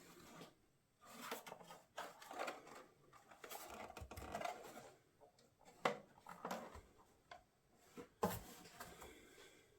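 Faint handling noises of small parts and tools at a workbench: scattered light clicks, taps and brief scrapes, with a couple of sharper clicks about six seconds in and again past eight seconds.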